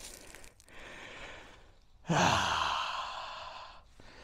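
A man breathing hard, then letting out one long, loud sigh about two seconds in. He is winded after floundering into a deep, water-filled hole.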